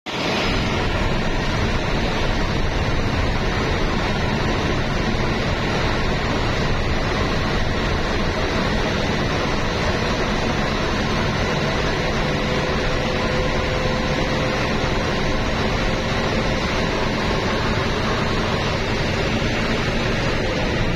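Steady road noise from a vehicle driving at highway speed: an even rush of tyres and wind with a faint steady hum mixed in.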